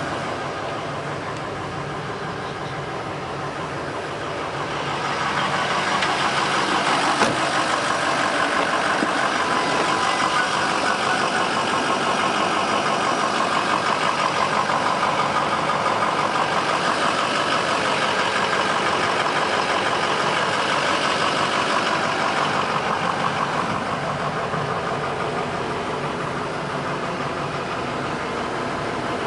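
Pickup truck engine idling steadily, heard from inside the cab. It grows louder about five seconds in, with a single brief click a couple of seconds later.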